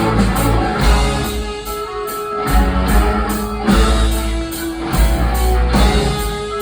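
Rock band playing live: electric guitar over bass and drum kit in an instrumental passage.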